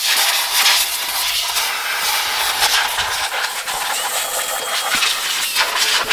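Compressed-air paint spray gun hissing steadily as it sprays enamel.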